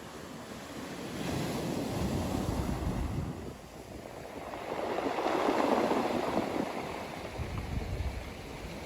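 Ocean waves washing onto a beach: two surges of surf rise and fall, the second one louder.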